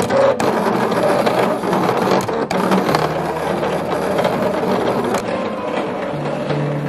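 Silhouette Portrait 3 sticker cutter at work: its motors whir as the blade carriage moves and the rollers feed the sheet, the low whine stepping in pitch as the moves change, with a few sharp clicks.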